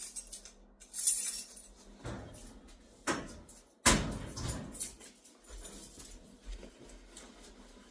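Handling noise as a person moves about a small room: a few separate knocks and clicks with some rustling. The loudest is a sharp knock just under four seconds in, with a short ring after it.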